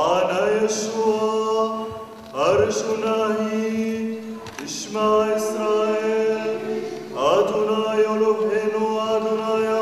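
A solo male voice chanting a liturgical text in three phrases. Each phrase swoops up into a long note held on one steady reciting pitch.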